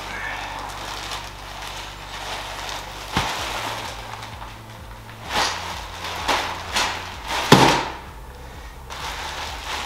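Plastic-wrapped memory foam mattress being handled and set down onto a folding bed's steel wire frame: plastic wrap rustling, a sharp knock about three seconds in, then several thumps, the loudest about seven and a half seconds in as the mattress lands on the frame.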